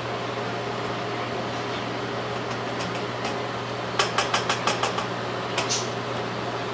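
Spatula scraping and tapping against a skillet while rice is turned, a quick run of about eight clicks about four seconds in and one more shortly after. Under it a steady low hum.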